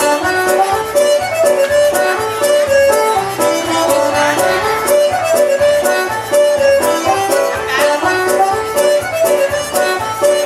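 Music: a lively melody over a steady bass line and regular drum beat.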